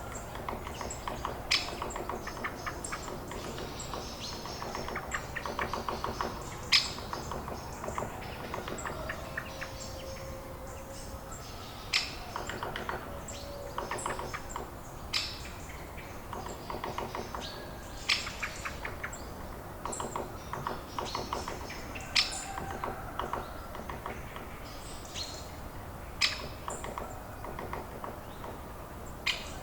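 Birds calling: a continuous rapid chattering, broken every few seconds by a short, sharp chirp.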